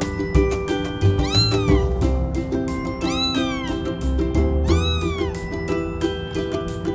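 Kitten meowing three times, each call rising then falling in pitch, about a second and a half apart, over background music with a steady beat.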